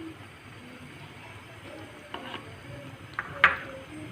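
Prawns in shell-out sauce sizzling in a pan while being stirred, with a few sharp knocks of a utensil against the pan, the loudest about three and a half seconds in with a short metallic ring.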